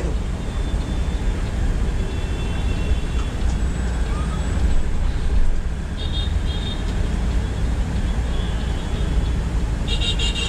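Steady low rumble of a Volvo B9R multi-axle coach's diesel engine and tyres, heard from inside the cabin while driving. A few short high tones come in about six seconds in and again near the end.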